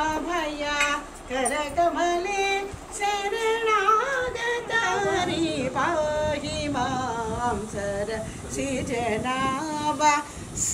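Several women's voices singing a traditional Telugu mangalam, an auspicious blessing song, with overlapping, wavering melody lines.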